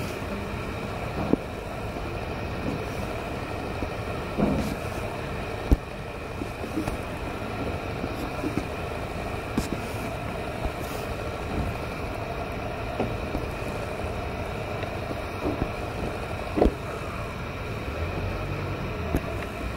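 Steady hum of road traffic, with a few short knocks scattered through it. The sharpest knocks come about five and a half seconds in and again near the end.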